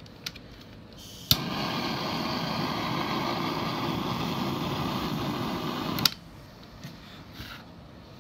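Handheld kitchen blowtorch lit with a sharp click about a second in, its flame hissing steadily for about five seconds, then cut off with another click.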